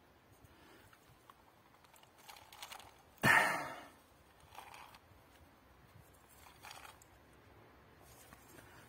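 Handling noise from an old felt-covered soldier's canteen being turned in the hands. There is one louder scrape or rattle about three seconds in, and a few fainter rustles and knocks.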